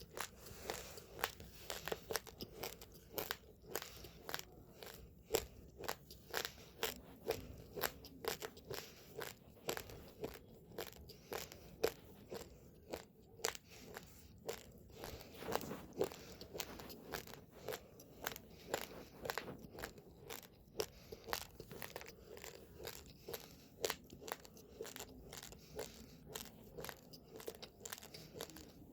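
Uncooked rice grains being chewed close to the microphone: rapid, irregular crunches, several a second.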